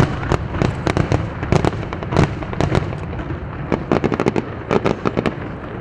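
Aerial fireworks going off in rapid succession: a string of sharp bangs and cracks, several a second, over a continuous low rumble.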